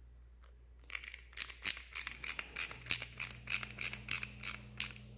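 A screwdriver driving a screw that fixes a bearing wheel into a plastic ghost-trap housing: a regular run of short, scratchy clicks, about three a second, starting about a second in.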